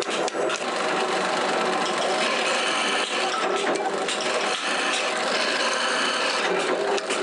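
Bench drill press running steadily as its bit drills into a wooden knife-handle scale. A few sharp hammer taps on wood and a steel block come right at the start.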